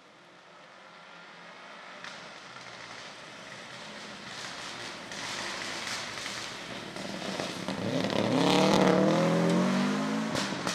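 Rally car approaching at speed, its engine getting steadily louder over about eight seconds, then passing close with the engine pitch dropping about nine seconds in.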